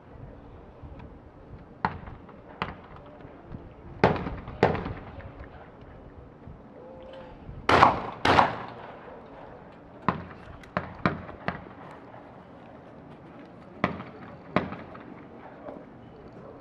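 12-gauge shotguns firing skeet doubles: three pairs of shots, each pair about half a second apart, with the loudest pair about eight seconds in. Fainter sharp reports fall between the pairs.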